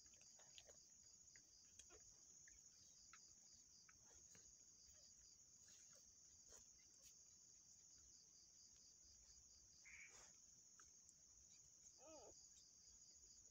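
Faint night chorus of crickets: a steady high-pitched ringing, with a second pulsed trill coming in short runs. Two brief squeaks near the end, the second wavering up and down in pitch.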